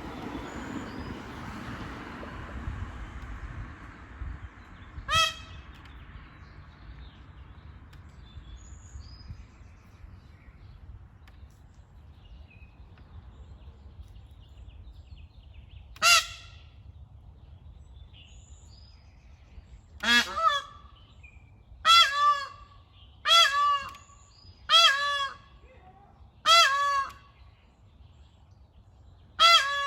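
Indian peahen giving short, nasal honking calls, eight in all: two single honks, then a quick series of five about a second and a half apart, and one more near the end. These are the contact calls of a peahen separated from her flock. A broad rushing noise fades away over the first few seconds.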